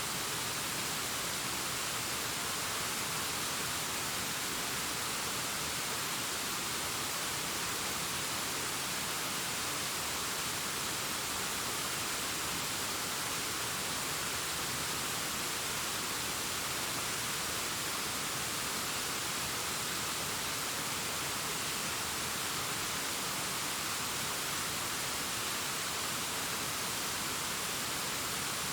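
Distant waterfall cascading down a rockface: a steady, even rush of falling water with no change.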